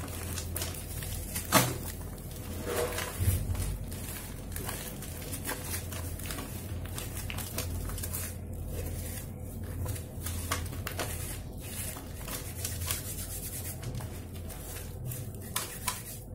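Dry sand-cement powder scooped by hand and sifted through the fingers into a plastic bowl: a continuous gritty rustle full of small crackles. There is one louder knock about a second and a half in, and a low steady hum underneath.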